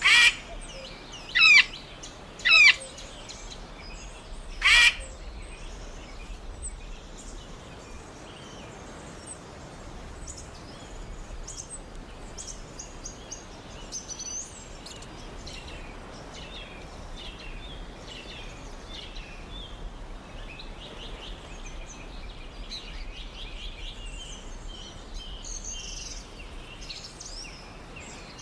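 Bird calls: four loud, sharp calls, each falling steeply in pitch, in the first five seconds, then a background of many faint chirps and trills from smaller birds.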